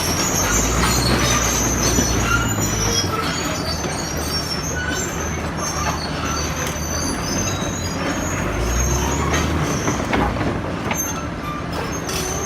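Komatsu D85ESS crawler bulldozer on the move, its diesel engine running under a steady metallic squeal of the steel tracks, with scattered clanks.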